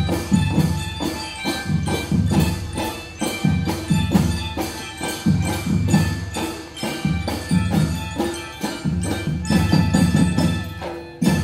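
Marching drum band playing: drums beat a fast, steady rhythm, several strokes a second, under a melody. The music cuts off abruptly at the end.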